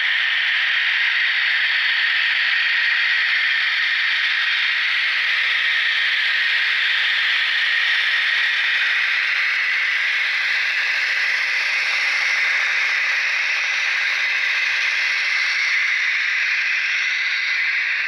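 Recreated KiHa 82 diesel railcar engine sound from ESU LokSound V3.5 sound decoders, played through the tiny speakers of a KATO HO-scale model train as it runs past, together with the rattle of its running gear. A steady, thin, hissy rattle with no deep rumble.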